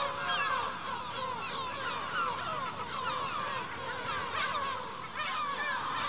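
A gull colony, mostly lesser black-backed gulls with their chicks, calling all at once: a dense chatter of many short, overlapping squeaky calls.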